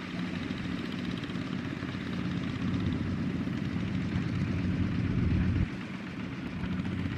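Single-cylinder diesel engine of a small walking-type farm tractor, running with a steady low note. It grows louder after a couple of seconds, drops off abruptly a little past halfway, then picks up again.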